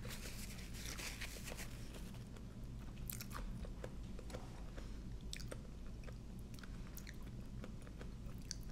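A person chewing and crunching a mouthful of papaya salad with fresh raw vegetables, close to the microphone, with many sharp wet mouth clicks.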